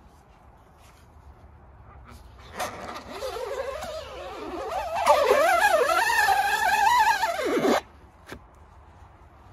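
Rubber squeegee blade squeaking as it is dragged through ink across a screen-printing mesh: a wavering squeal that starts about two and a half seconds in, grows louder, dips in pitch and then cuts off sharply near the end.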